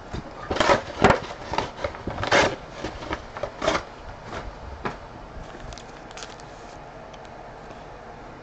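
Trading-card packs and their cardboard box being handled: a run of short crinkles, rustles and light knocks over the first five seconds or so, then it goes quiet.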